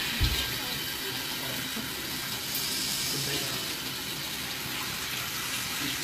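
A homemade prototype dishwasher running its wash cycle: a steady hiss of hot water spraying inside its plastic-sheeted enclosure. A short low thump comes right at the start.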